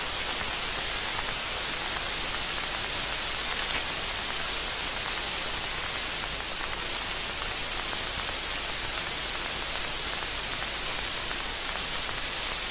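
Steady hiss of static with no voice, strongest in the high end, with one faint click about four seconds in.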